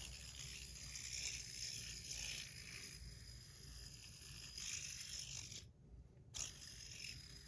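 Dama Steel Horizon fidget spinner spinning in the hand: a faint, steady whir with light rubbing, after a single click at the start. The sound drops away for about half a second around six seconds in.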